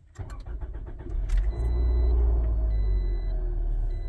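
2008 Scion xB's 2.4-litre four-cylinder engine being cranked by the starter and catching about a second in. It flares up loud on start, then settles toward idle. This is a cold start of a 352,000-mile engine with an oil additive just poured in.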